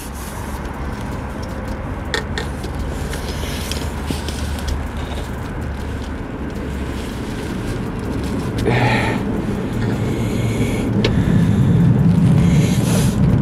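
Steady city road traffic noise, with a heavier vehicle rumbling louder over the last few seconds. A few small clicks and a brief scrape from handling come through about two and nine seconds in.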